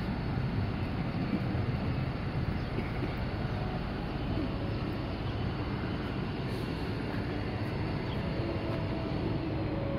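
Steady city traffic noise: a continuous low rumble and hiss of vehicles, with a faint low hum coming in near the end.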